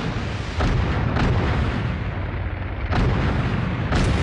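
Battle din of tank gunfire and shell explosions over a continuous low rumble, with sharp shots about half a second in, just over a second in, at three seconds and again at four seconds.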